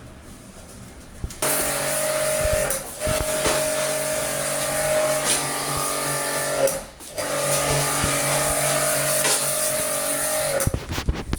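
Portable electric jet pump (pressure washer) running and spraying water onto an air-conditioner indoor unit: a steady motor whine with a hiss of spray. It starts about a second and a half in and cuts out briefly a few times as the spray is released.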